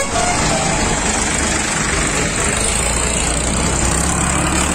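Diesel engines of Farmtrac tractors running close by in slow, jammed traffic, a steady low engine drone.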